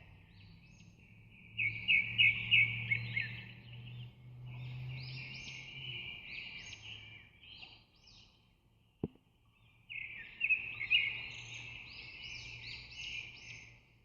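Birds chirping in quick, dense phrases of a few seconds each, with short pauses between them, and a single sharp click about nine seconds in.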